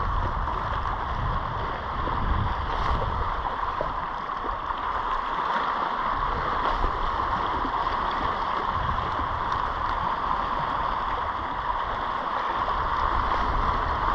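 Steady wash of sea swell against shoreline rocks, with a low, uneven rumble underneath.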